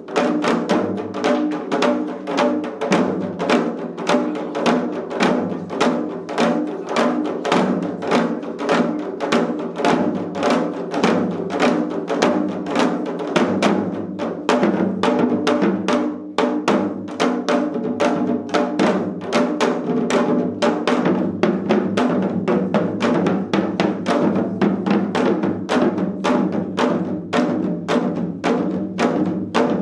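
Four janggu (Korean hourglass drums) played together in a seol-janggu piece: a fast, even run of stick and mallet strokes on both drumheads.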